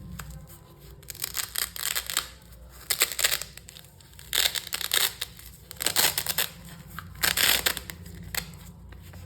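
Packaging being handled and torn open: a series of short crinkling, rustling bursts, about five clusters.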